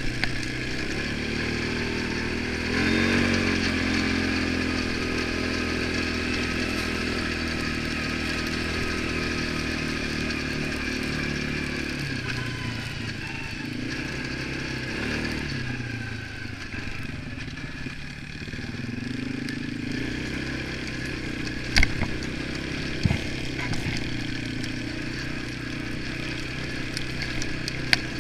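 ATV engine running while under way, its revs rising and falling as the rider works the throttle, with a few sharp knocks in the last third.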